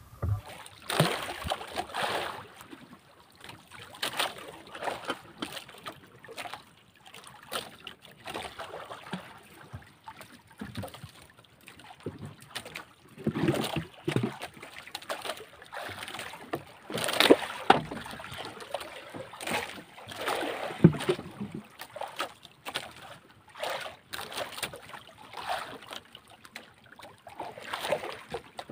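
Sea water slapping and sloshing against the wooden hull of a small outrigger fishing boat, in irregular bursts.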